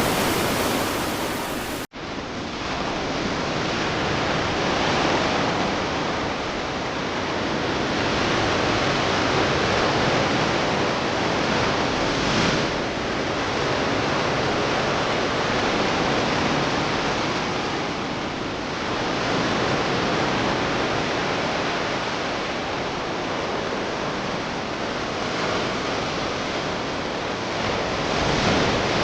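Sea surf washing on the shore: a steady rush of waves that swells and eases every few seconds.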